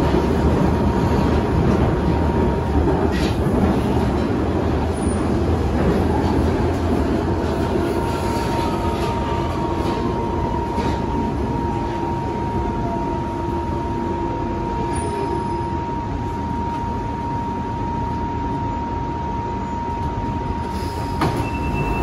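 London Underground Central line tube train heard from inside the carriage, running with a steady low rumble and a constant whine. From about eight seconds in, a second tone slides steadily down in pitch as the train slows, and a few clicks sound near the end.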